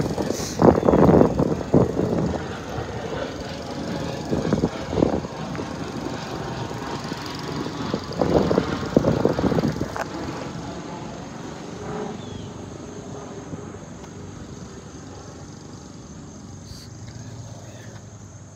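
Wind buffeting a handheld phone's microphone in irregular rumbling gusts, strongest in the first ten seconds and easing off after that. A steady high insect drone runs underneath.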